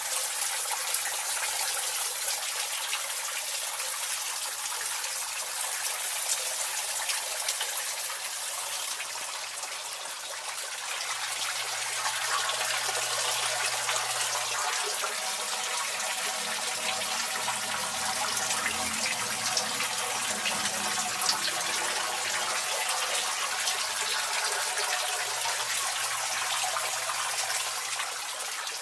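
Water running and splashing steadily into a koi pond, an even rushing trickle.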